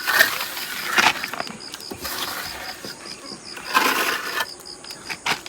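A steel trowel scraping wet mortar across a brick wall in a handful of separate strokes, the longest about four seconds in.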